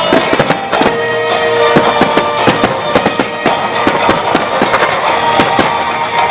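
A starmine fireworks barrage, with many shells bursting and cracking in quick, overlapping succession over the music that accompanies the show.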